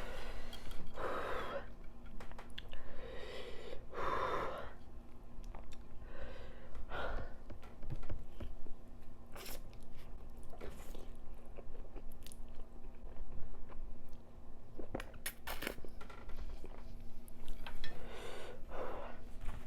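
Close-miked chewing of spicy noodles, with many short wet mouth clicks and several louder breathy sounds spaced a few seconds apart.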